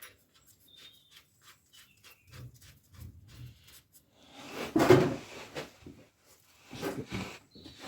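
Handling noise as the magnetic drain plug goes back into the gearbox: small clicks and a brief squeak, a few low knocks, then a louder scrape about five seconds in and another near the end.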